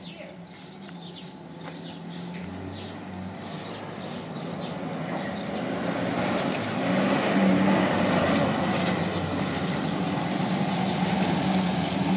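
A pickup truck's engine approaching and growing steadily louder as it pulls up close. Over the first part, short swishing strokes of a straw broom sweeping concrete, about two a second, fade under the engine.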